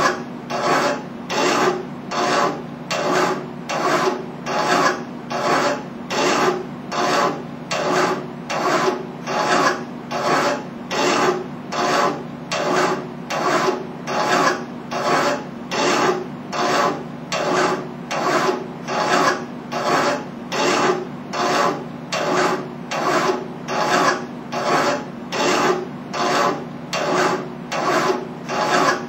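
Hand file rasping back and forth on a metal tube clamped in a bench vise, a steady rhythm of about one stroke a second.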